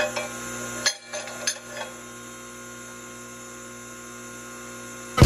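Steady electric hum from the forging press's motor, with several sharp clinks in the first two seconds and a brief dip in the hum about a second in.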